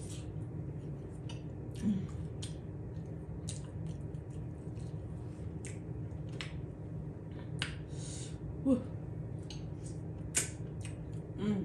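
A person chewing a mouthful of seafood-boil food up close, with wet lip smacks and mouth clicks scattered through it. There are a couple of louder smacks near the end, over a steady low hum.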